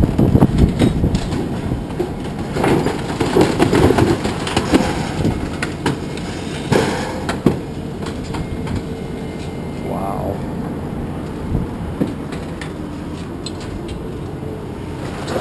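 Steady low mechanical rumble with irregular clanks and rattles of loose metal, busiest in the first five seconds.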